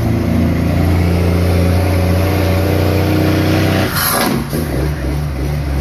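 Heavy truck's diesel engine heard from inside the cab, running at steady revs under power. About four seconds in there is a short burst of hiss and the engine note drops lower.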